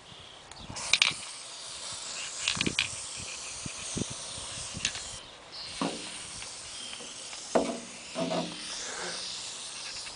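Aerosol spray-paint can spraying in long steady hisses, with a short break about five seconds in.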